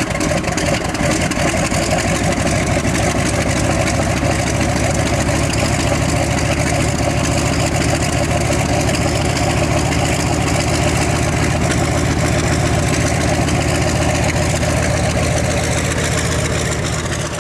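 Loud, steady engine-like drone with a heavy hiss, holding level and fading near the end.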